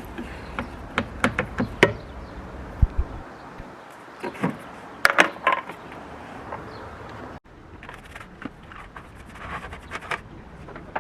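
Scattered light clicks, taps and scrapes of hand work with tools and small hardware, with a louder cluster of knocks about five seconds in. The sound cuts off abruptly about seven seconds in and the clicking resumes.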